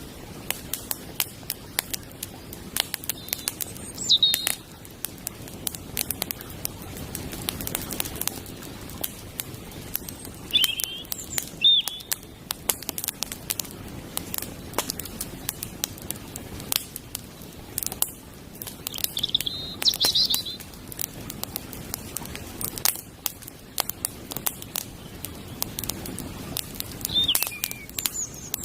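Small campfire burning, its wood crackling with frequent sharp pops. A bird calls in short chirps about four times.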